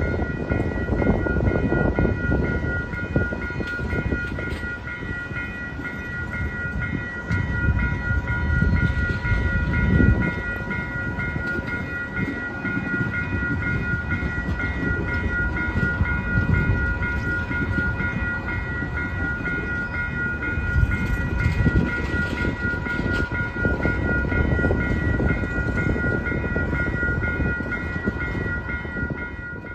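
A train's passenger cars rolling past close by, their wheels making a continuous low rumble on the rails that swells and eases. Over it runs a steady high-pitched ring that pulses about twice a second.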